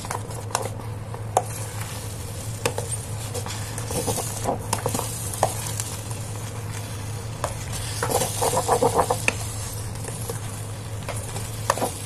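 Steel spoon scraping and clinking against the steel pot of an electric multi-cooker while thick upma is stirred, with quick runs of taps about four and eight seconds in. The semolina has almost no water left and is starting to stick to the hot base; a faint sizzle and a steady low hum run underneath.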